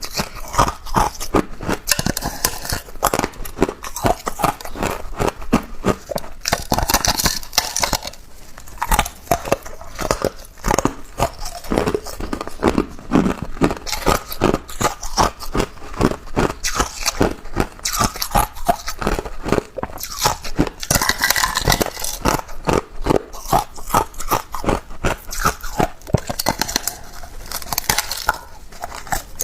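Ice being bitten and chewed close to the microphone: a dense, irregular run of sharp crunches and cracks, many each second, with no pause.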